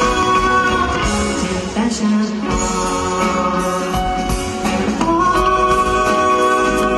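A live pop band playing, with a lead vocal over violin, drums and keyboard. Long notes are held at the start and again near the end.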